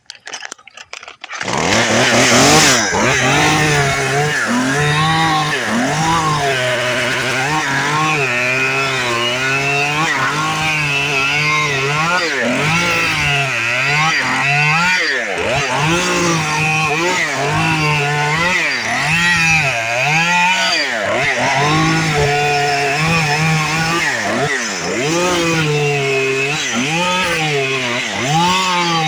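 Two-stroke chainsaw that comes in suddenly about a second and a half in, then runs, revving up and down over and over as it cuts cabbage palm fronds.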